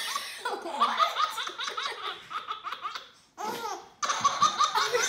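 A baby laughing in hearty belly laughs, one quick burst after another, breaking off briefly just past three seconds in and then laughing again.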